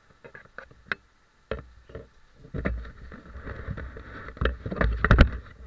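Handling noise on a helmet-mounted action camera: irregular knocks, clicks and rubbing against the helmet and camera housing, with the loudest thumps near the end.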